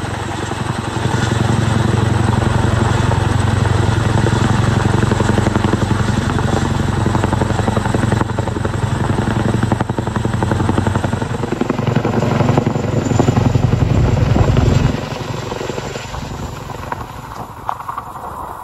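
CH-47 Chinook tandem-rotor helicopter hovering overhead with a slung load, its rotor blades beating in a fast, steady chop. About fifteen seconds in the sound drops suddenly to a fainter rotor noise.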